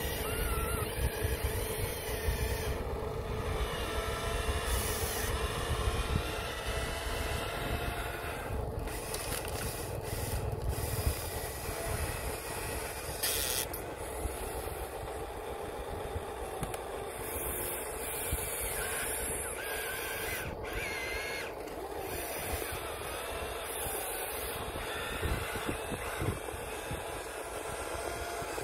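Small electric motors of a toy RC excavator whirring steadily as it moves its arm and digs dirt, with a low rumble underneath.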